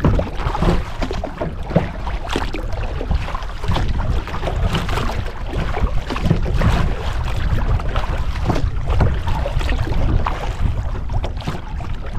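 Kayak moving through choppy, wind-driven water, small waves splashing and slapping against the bow in an uneven run of splashes. Wind buffets the microphone, giving a heavy low rumble underneath.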